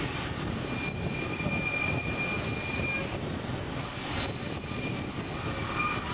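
St. Kitts Scenic Railway narrow-gauge train running, heard from its open upper deck. A steady rumble of wheels on the track carries thin, high-pitched wheel squeals that come and go.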